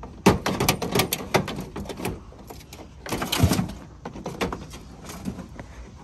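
Irregular metal knocks and clanks from a breaker bar prodding and tapping around inside a pickup's engine bay, several a second and loudest at the start. A short sound falling in pitch comes about three seconds in.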